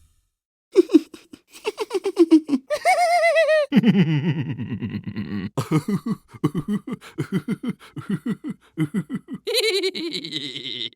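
Cartoon sound effects of quick, rapid-fire laughter, several short clips one after another, each a run of fast pulses that slide down in pitch, with a brief warbling high-pitched voice near 3 seconds in.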